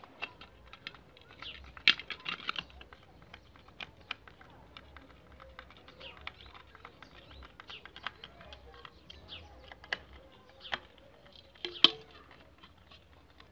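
Scattered small clicks and taps of a round plastic light-fitting cover being screwed tight against a concrete wall, with sharper clicks about two seconds in and near the end. Faint bird chirps in the background.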